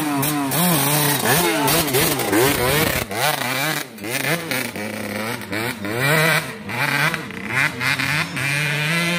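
Suzuki RM125 two-stroke dirt bike engine revving as the bike rides off, its pitch rising and falling again and again.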